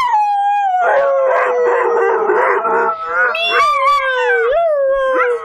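Podenco howling: one long drawn-out howl that slides down in pitch over the first two seconds, turns rough for a while, then rises again after about three seconds and wavers on.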